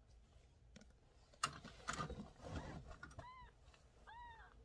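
A kitten mewing twice, short high mews that rise and fall. Before them come a sharp tap and a second or so of close rustling and bumping.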